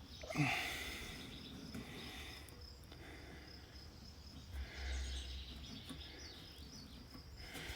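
Faint background with a steady, high insect chirping, broken by a short clatter about half a second in.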